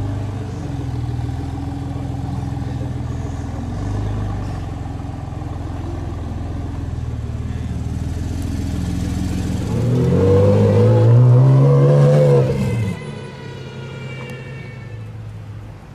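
Sports car engine running steadily at close range. About ten seconds in, a loud rev climbs in pitch and then cuts off abruptly, leaving fainter traffic engine noise.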